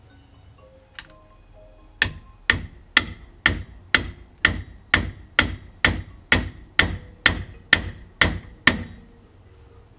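A hammer beating on the rust-seized front wheel hub of a Jeep Grand Cherokee to break it loose. About fifteen steady, ringing blows come at roughly two a second, starting about two seconds in and stopping near nine seconds.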